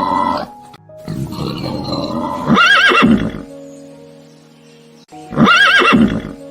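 Horse whinnying twice, each a shaky, quavering call about a second long, over steady background music.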